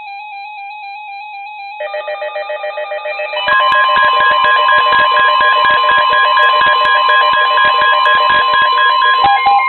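Several NOAA weather radios sounding their alarms together for a severe thunderstorm warning: warbling electronic alert beeps from one radio, a second set of beeps joining about two seconds in, then the steady National Weather Service warning tone cutting in much louder about three and a half seconds in, with another radio's beeps joining near the end.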